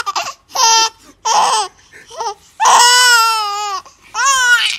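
Baby's high-pitched squealing laughter in about five separate bursts, the longest held for about a second just past the middle and sliding slowly down in pitch.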